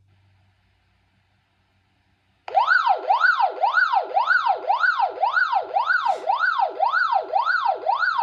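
Wishouse walkie-talkie's SOS siren, set off by holding the SOS button: a loud electronic wail sweeping up and down about twice a second. It starts abruptly about two and a half seconds in.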